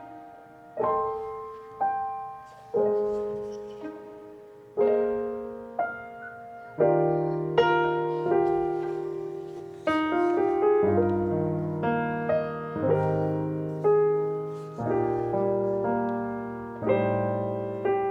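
Background music: solo piano playing a slow, gentle melody of struck notes that fade after each one, sparse at first and filling out with low bass notes about seven seconds in.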